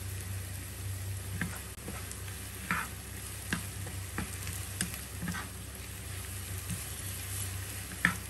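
Garlic slices, ginger and dried chillies sizzling in hot oil in a nonstick wok, stirred with a wooden spatula that scrapes and knocks against the pan about once a second. The sharpest knock comes near the end.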